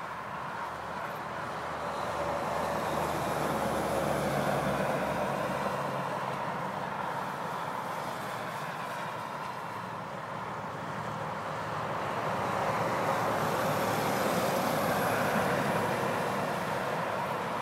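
Road traffic passing: a steady rush of tyre and engine noise that swells twice as vehicles go by, first a few seconds in and again later.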